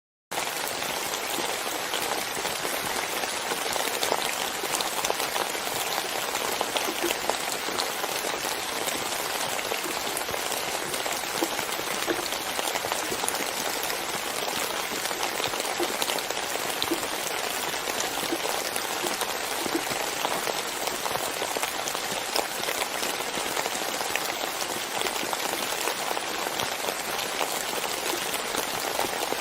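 Steady rain falling, a dense even hiss with scattered small drop ticks, cutting in suddenly from silence at the very start.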